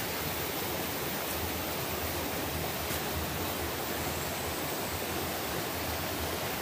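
Shallow rocky forest stream running over stones: a steady rush of water.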